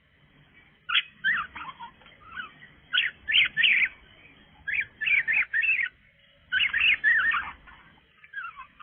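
Budgerigar chattering in about five short bursts of quick chirps and warbles, heard through a CCTV camera's microphone.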